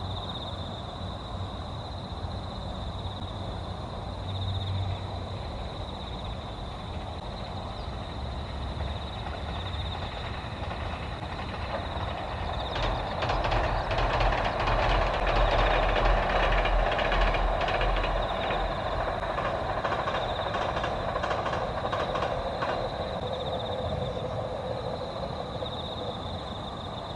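A vehicle passing by: a mechanical rumble that swells over several seconds, peaks about halfway through with a rapid run of sharp clicks, then slowly fades. A steady high-pitched hum continues underneath throughout.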